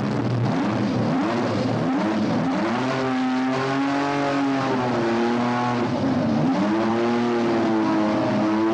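Ford Cosworth 1.5-litre twin-turbo V6 Formula One engine running, its revs rising and falling again and again. It keeps running because the kill switch fails to cut it.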